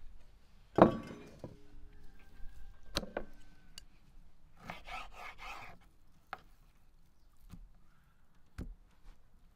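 Knife cutting raw beef liver on a wooden cutting board: a rasping scrape of the blade through the meat and several sharp taps of the knife on the board. About a second in, a loud knock with a short ringing, the loudest sound.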